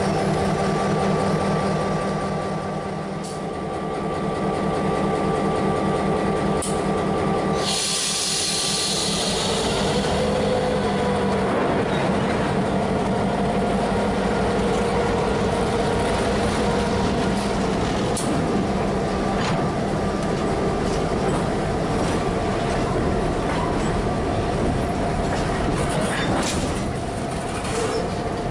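New England Central diesel locomotive 3845 running as it pulls a freight train past, its engine drone steady, with a short hiss about eight seconds in. Then boxcars roll by on steel wheels.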